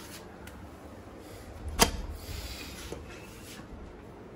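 A wooden door being unbolted and opened: one sharp metal clack of the latch about two seconds in, then brief scraping as the door is pushed, and a lighter knock about a second later.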